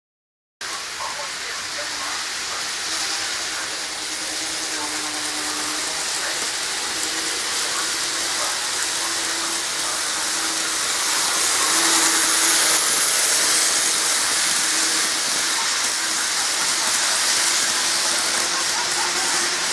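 N-gauge model train, a Kintetsu 22600 and 12200 series limited-express set, running on sectional track: a steady hiss of wheels and motor with a faint hum. It starts suddenly just after the opening silence and is loudest as the train passes close, about twelve seconds in.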